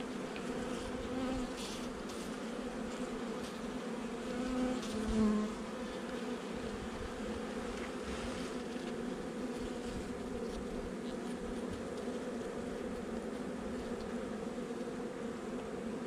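Honeybees buzzing in a steady hum that swells louder for a moment about five seconds in.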